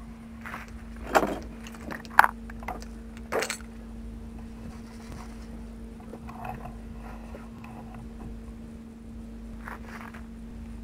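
A few sharp metal clinks and clanks in the first few seconds as parts are handled at a truck's removed brake drum, then a faint clink near the end. A steady low hum runs underneath.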